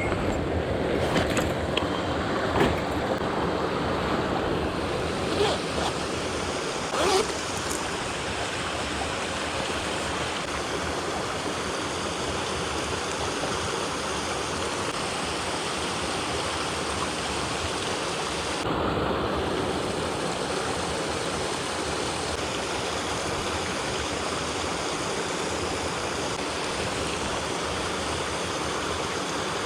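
Mountain stream water rushing steadily over rocks, with a few short knocks during the first seven seconds.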